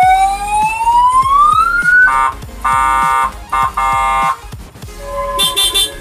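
Aftermarket three-tone siren horn on a motor scooter being switched through its tones: a rising wail that cuts off about two seconds in, then four short steady blasts, and another steady tone near the end.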